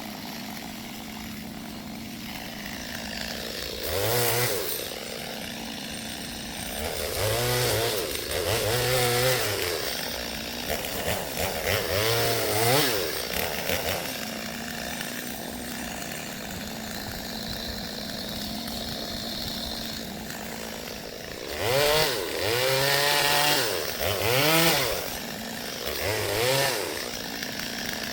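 Gas chainsaw running at idle and revved up in repeated bursts, its pitch rising and falling each time, about six times.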